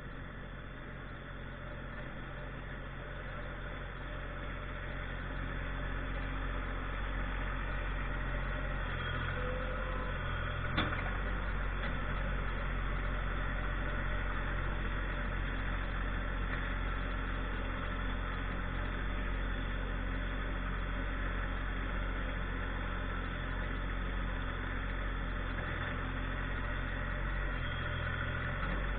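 Tractor engine running steadily, getting louder about five seconds in, with a single sharp click about eleven seconds in.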